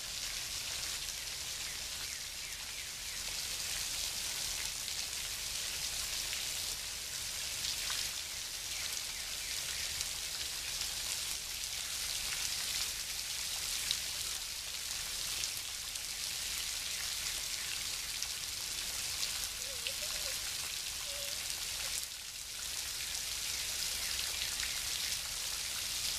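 Steady hiss and patter of water from a long, straight waterfall falling a long way and spattering onto the rocks below.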